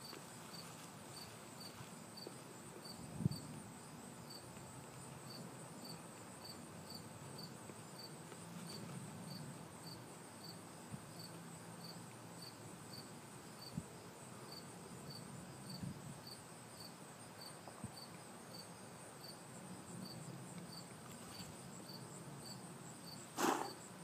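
Faint cricket chirping: short high chirps repeating evenly, about two a second. There is a brief low bump about three seconds in and a short, louder noise near the end.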